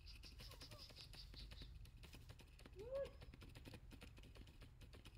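Quiet forest ambience with scattered faint clicks and ticks and a faint high buzz that stops after about a second and a half. About three seconds in, a single short call rises and falls in pitch; it is the loudest sound and most likely comes from a macaque.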